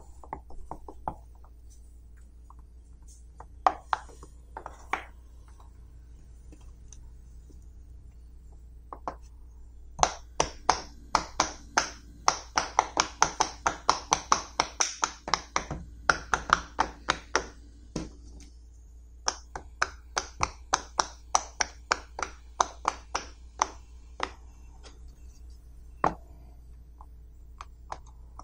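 Silicone pop-it fidget toy bubbles being pushed through one after another with the fingertips, each giving a sharp pop. A few scattered pops first, then quick runs of about four pops a second from about ten seconds in to about eighteen, and again from about nineteen to twenty-four, with one last pop near the end.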